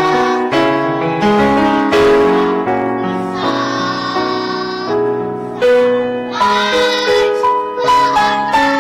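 Preschool children's choir singing a song with instrumental accompaniment, a melody of held notes moving step by step.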